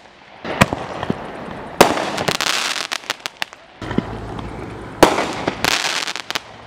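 Dominator Crackling Artillery Shells, reloadable mortar shells, bursting in the sky. Twice, a sharp bang (about 1.8 s and 5 s in) is followed by a dense shower of crackling that fades. A low rumble of the next shell's launch comes just before the second burst.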